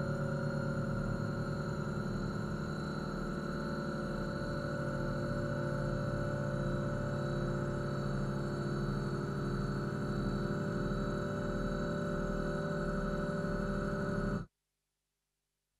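Live electronic music: a dense drone of many steady held tones over a fluttering low pulse, which cuts off suddenly about fourteen seconds in, leaving silence.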